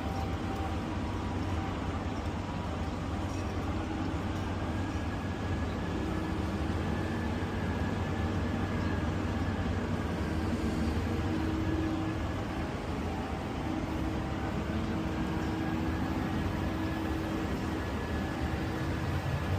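Steady low mechanical rumble with a faint constant hum.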